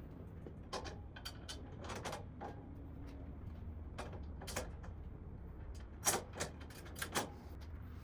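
Scattered light knocks, taps and scrapes of metal tool-cart parts being handled and fitted together, over a low steady hum. The taps are loudest around six and seven seconds in.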